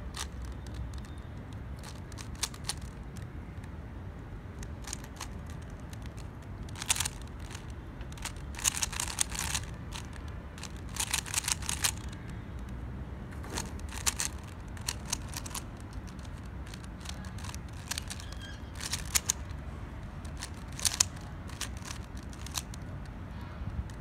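A 3x3 Rubik's cube being turned quickly by hand during a timed solve: runs of rapid plastic clicking and clacking as the layers are twisted, in clusters broken by short pauses, over a steady low rumble.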